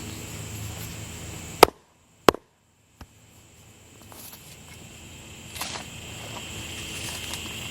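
Two sharp knocks about two-thirds of a second apart, with a dead-silent gap of about a second after them, before a faint steady background comes back in.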